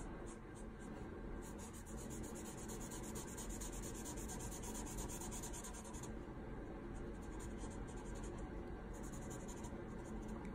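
Felt-tip marker scratching on paper in quick short strokes as a drawing is coloured in. It is faint, and the strokes ease off for a few seconds past the middle.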